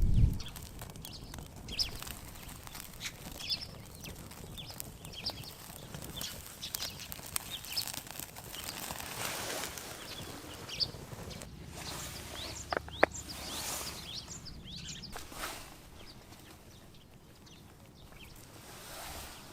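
Wood campfire crackling with scattered small pops, with a few louder knocks and rustling in the middle.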